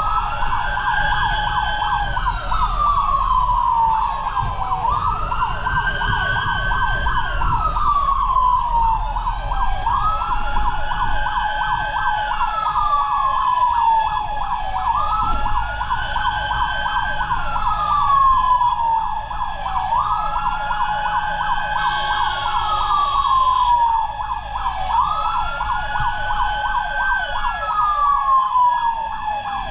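Fire truck siren wailing on an emergency run. Every five seconds or so the pitch rises quickly, holds briefly, then slowly falls, over a steady high tone, with engine and road rumble underneath.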